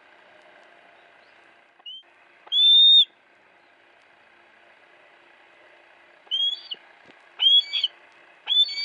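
Captive female hawk calling: a short cry about two seconds in, then a loud half-second cry, then three short, high-pitched cries in quick succession near the end.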